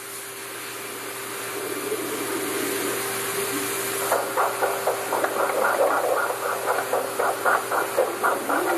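Doppler audio from a veterinary ultrasound machine scanning a pregnant French bulldog: a steady hiss, then from about halfway a fast, even whooshing pulse of about four to five beats a second, the heartbeats of the unborn puppies.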